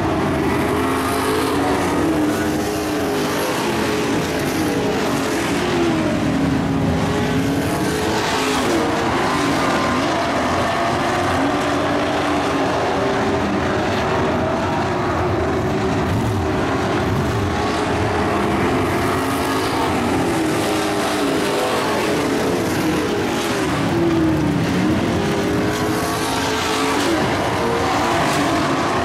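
Engines of several dirt-track race trucks running at speed, their pitch rising and falling again and again as trucks pass one after another.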